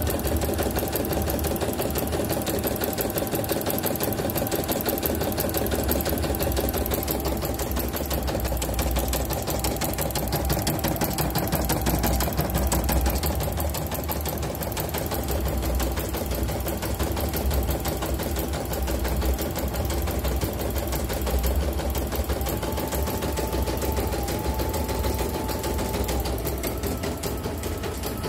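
CNY computerised embroidery machine stitching steadily at speed, the needle going in a fast, even rhythm. It is a test run after repair of heavy turning and poor stitching, with a new inner rotary hook, presser foot and bobbin case fitted.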